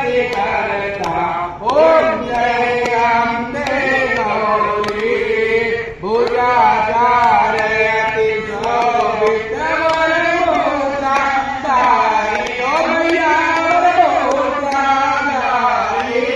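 A devotional aarti hymn being sung: one melodic voice holding long, wavering notes in a continuous song.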